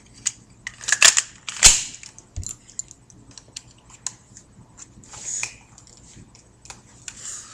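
Airsoft Beretta M92 FS pistol being put back together by hand: sharp plastic-and-metal clacks and clicks as parts snap into place, three louder ones in the first couple of seconds and many small ticks after, with two short scraping sounds near the middle and the end.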